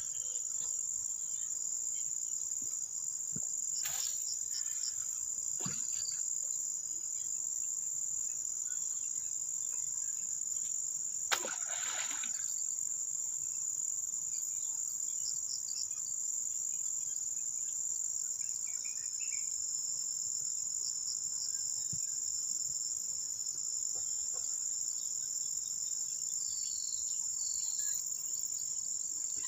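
Steady, high-pitched, unbroken drone of insects, crickets or cicadas. A sharp knock comes about eleven seconds in, with fainter knocks at about four and six seconds.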